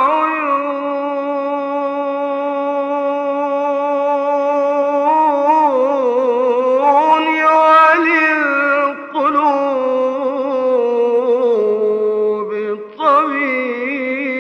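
A solo male voice chanting an Islamic ibtihal without instruments, holding one long, wavering, ornamented melismatic line on a vowel. It pauses for a breath twice, about 9 and 13 seconds in.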